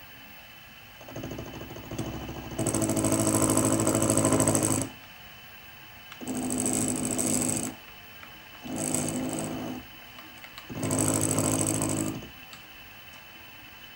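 Mini milling machine's end mill cutting into a steel block in four separate bursts, each a rough buzzing cut. The first is the longest and loudest, running nearly four seconds; the others last one to two seconds. Between the cuts the spindle motor runs quietly and steadily.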